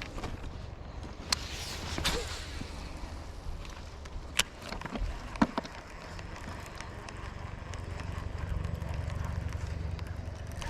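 Low wind rumble on the microphone, with a few sharp clicks and knocks from handling the fishing gear scattered through it.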